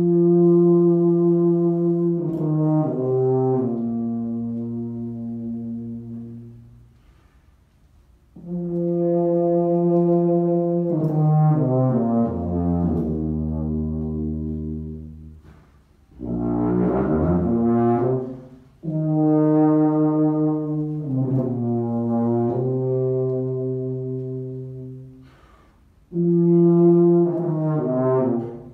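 Solo tuba improvising in five phrases of long held notes, each opening on a sustained tone and stepping down into lower notes, with short pauses between phrases. About sixteen seconds in, a brief rougher, wavering tone.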